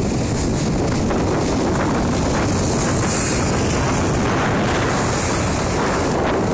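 Strong wind ahead of a storm blowing over the microphone, a steady heavy rumble with no letup.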